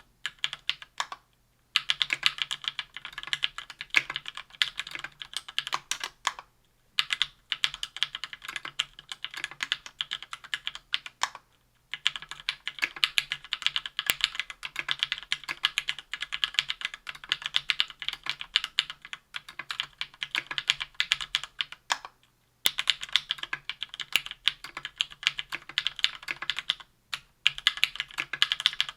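Typing on a KBDfans Tofu 60% aluminium keyboard with lubed SP-Star White Meteor 57 g linear switches, an aluminium plate and GMK Triumph Adler keycaps. Quick runs of key clacks start about two seconds in and are broken by a few short pauses.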